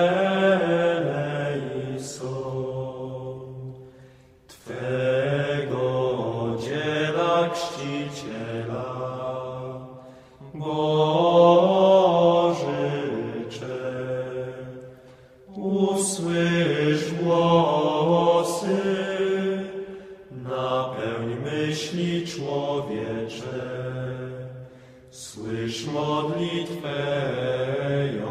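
A man's voice chanting a religious text in long, slow, melismatic phrases, about six of them, each a few seconds long with short breaths between.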